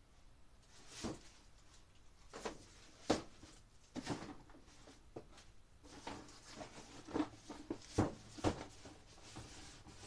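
Someone rummaging through boxes and stored items by hand: irregular knocks, clatters and rustles as things are picked up and set down, the sharpest knocks about three seconds in and again around eight seconds in.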